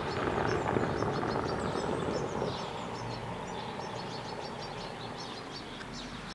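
The rumble of a vehicle moving away, loudest about a second in and fading over the next two seconds, with small birds chirping throughout.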